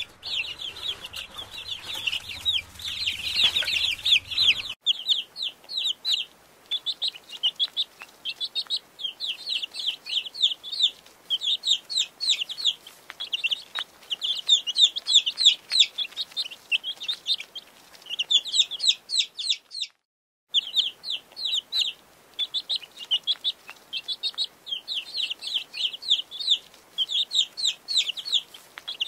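Newly hatched chicks peeping: rapid, high, falling peeps in runs, several chicks at once.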